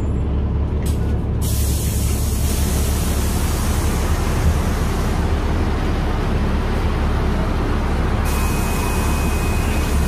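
Cabin noise inside a moving NefAZ 5299 city bus: a steady low engine and drivetrain hum under a constant hiss of road and tyre noise.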